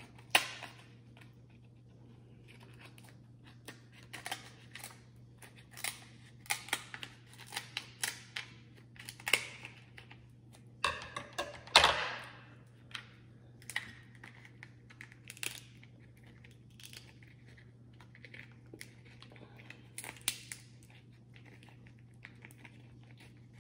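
Hard seafood shells being cracked and snapped open by hand to get at the meat: an irregular run of sharp cracks and crinkles, loudest about twelve seconds in, over a faint steady hum.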